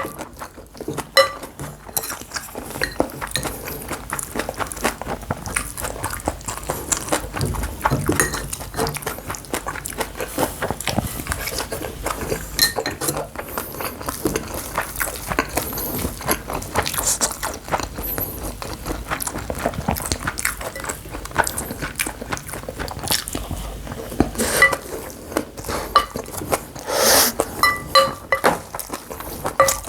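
Close-up eating sounds: bibimbap being chewed, with a spoon clinking and scraping against the bowl now and then. The clearest clinks come near the start and again near the end.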